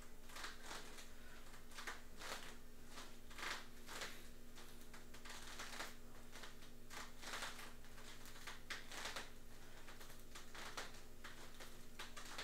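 Quiet room tone: a steady low electrical hum under faint, irregular soft rustles.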